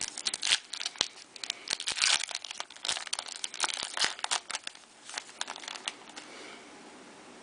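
A trading card pack wrapper being torn open and crinkled in the hands, a dense run of crackling and tearing that dies down about six seconds in.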